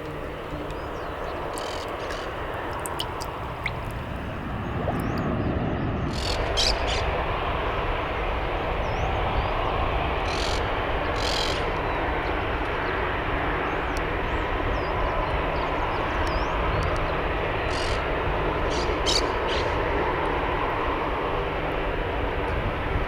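Airplane engines running, a steady roar that grows louder about five seconds in and then stays loud, with a few short clicks on top.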